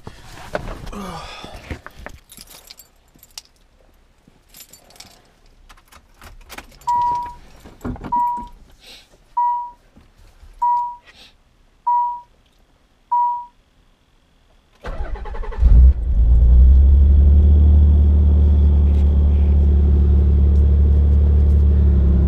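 Keys and rustling, then an in-car warning chime sounding six times, a little over a second apart. About fifteen seconds in, the Nissan 300ZX's V6 cranks, catches and settles into a steady idle on its first start after its coil-pack wiring was re-soldered to cure a misfire.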